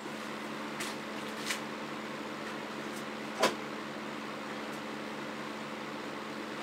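A steady low mechanical hum, with a few faint light clicks, the clearest about three and a half seconds in.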